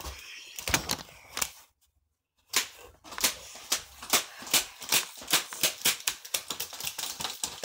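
A run of sharp taps or clicks, about three or four a second. It breaks off into silence for most of a second about two seconds in.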